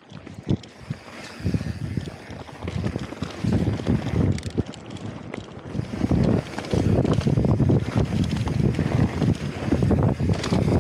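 Wind buffeting an action camera's microphone, with mountain bike tyres rumbling over a dirt trail, building up as the bike picks up speed downhill. Scattered clicks and rattles come through the rumble.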